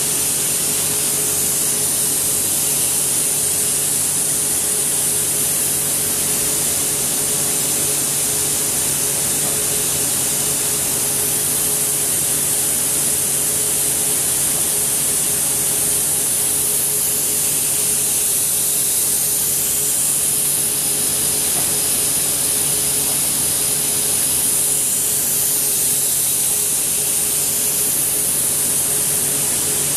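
Mecof Airone 165 CNC gantry milling machine running as its swivel head repositions: a steady, strong hiss with a low, even hum underneath.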